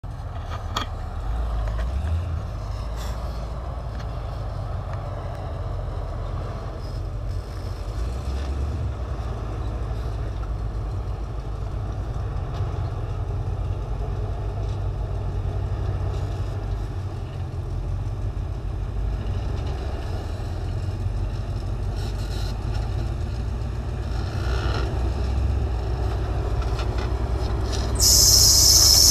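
Solid-axle-swapped Toyota 4Runner's engine rumbling low and steady as the truck crawls over granite boulders, with a loud hiss near the end.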